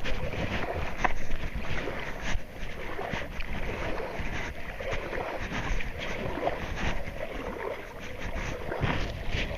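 Steady low rumble and rushing noise of a boat under way, with wind on the microphone and scattered knocks.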